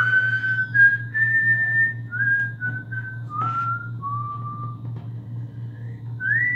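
A person whistling a slow tune, a string of held notes that each slide up into pitch, over a steady low hum. A few faint clicks of small revolver parts being fitted by hand come through about two to three seconds in.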